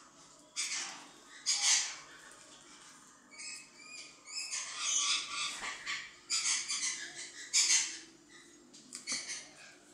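Small plastic bottle and its plastic cap being gripped and twisted by hand, giving irregular bursts of squeaky plastic scraping, a few of them with short high squeaks.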